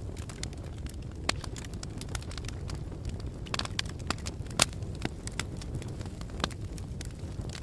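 Wood fire crackling with irregular sharp pops, one louder pop a little past halfway, over a steady low rumble of blowing wind.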